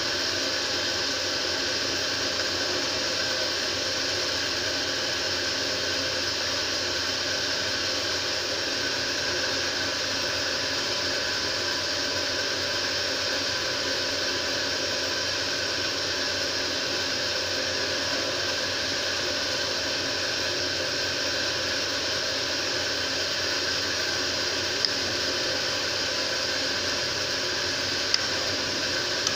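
Steady hiss of a pan of keema and potato curry simmering on a gas stove, with two faint clicks near the end.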